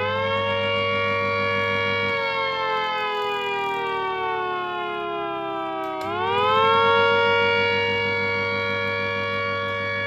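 Scale model Gents dual-ended motor siren wailing as a two-note chord: held at full pitch, then winding slowly down after about two seconds as the motor's electric hum cuts out, and winding quickly back up to full pitch about six seconds in.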